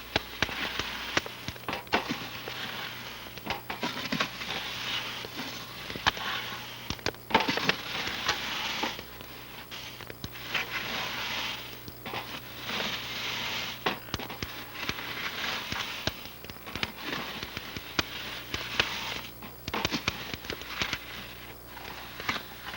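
Wild rice being roasted in a metal wash tub over a fire and stirred with a wooden paddle: the grains swish and rustle in waves every couple of seconds, with many sharp crackles and clicks.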